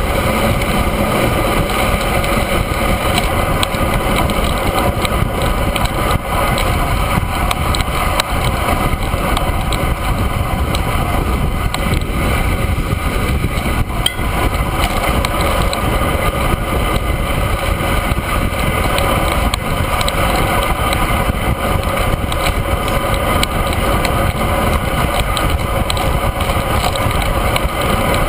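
Steady wind rush buffeting the microphone of a camera mounted on a road bike's handlebars while riding at speed, mixed with the road bike's tyre hum on asphalt.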